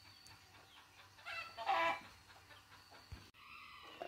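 A hen gives one drawn-out cluck about a second in, over a faint background.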